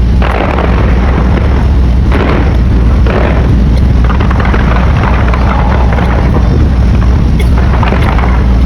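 Fireworks booming loudly: a continuous deep rumble with sharper bangs breaking out every second or two.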